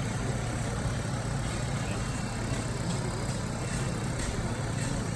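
An engine running steadily: a low, even drone that does not rev up or down.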